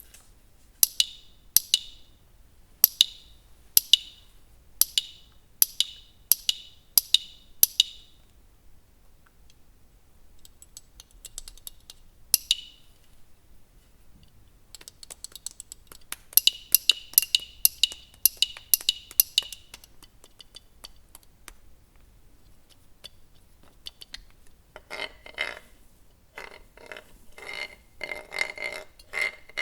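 Hand-made foley effects for an animated recipe: sharp, clinking taps, about one a second at first, then a quick run of them, then a denser rattling clatter near the end.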